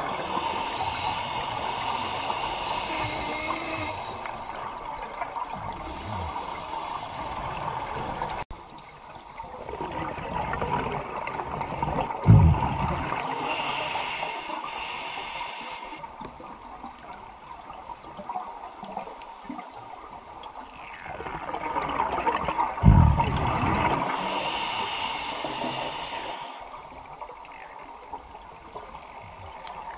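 Scuba diver breathing through an open-circuit regulator underwater, about one breath every ten seconds: three exhalations, each a low thump followed by a few seconds of rushing bubbles.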